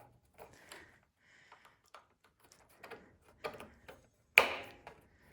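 Scattered light clicks and taps of small engine parts being handled and fitted, with one sharper click about four seconds in.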